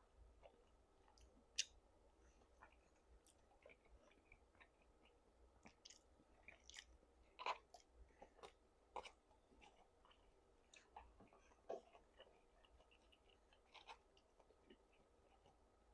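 Faint, close-up sounds of a person chewing food with the mouth: scattered short wet clicks and smacks, a few sharper than the rest.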